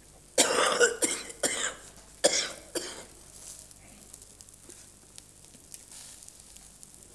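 A man coughing from the grill smoke, about four harsh coughs in the first three seconds. After that there is faint sizzling from meat skewers on a charcoal grill.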